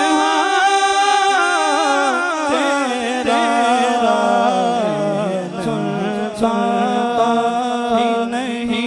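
A man singing a naat into a microphone, holding long drawn-out notes that wind up and down in pitch.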